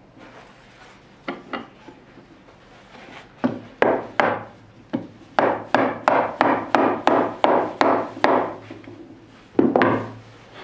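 A hand knocking on a wooden workpiece on a wooden bench. There are two light knocks, then a quick, even run of about a dozen knocks at roughly three a second, and one more loud knock near the end.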